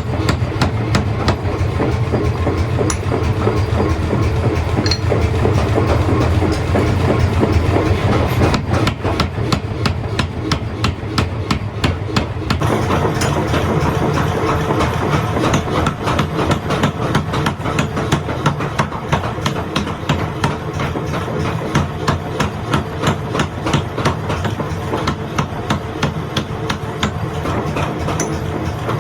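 Forging-shop machinery: a power hammer striking in a rapid, even rhythm over a continuous low machine hum. The sound changes abruptly about twelve seconds in, and the blows come more sharply after that.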